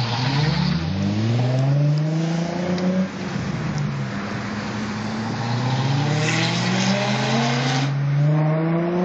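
Car engine accelerating hard through the gears, heard from inside a car's cabin: the pitch climbs for about three seconds, drops at a gear change, then climbs again in a long pull.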